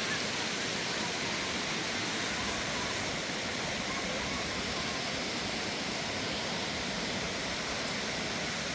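Steady rushing water, an even unbroken noise at a constant level.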